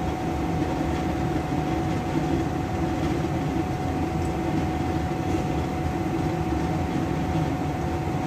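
Steady low mechanical rumble with a constant thin hum tone above it, unchanging throughout.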